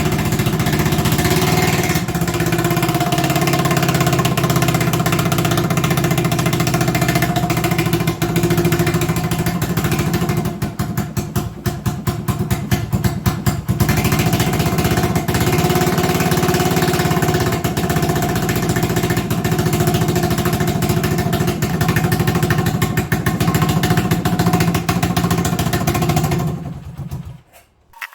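1980 Honda XL250S's air-cooled single-cylinder four-stroke engine running steadily while its carburettor idle screw is adjusted, the owner suspecting it idles too high. About ten seconds in it runs unevenly for a few seconds, then steadies, and near the end it drops in pitch and stops.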